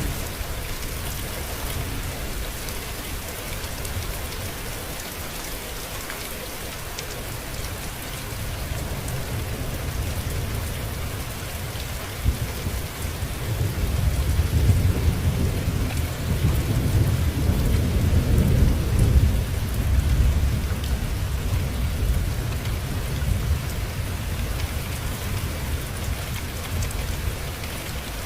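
Steady rain falling, with a long roll of thunder that builds about halfway through, peaks, and fades over several seconds.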